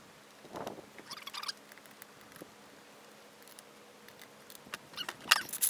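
Short bursts of air hiss and small clicks from an air chuck filling a small ultralight wheel's inner tube to 20 psi. One brief hiss comes about a second in, and louder hisses and clicks come near the end.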